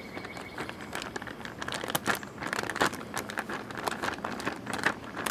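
Plastic zip-top freezer bag crinkling and crackling irregularly as hands handle it and push the food inside down to the bottom.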